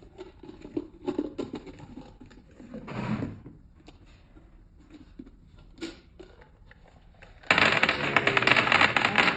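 A giant surprise egg being opened: a few scattered clicks and rustles, then about seven and a half seconds in a sudden, loud, continuous crinkling and crackling of wrapping or shell being torn and broken.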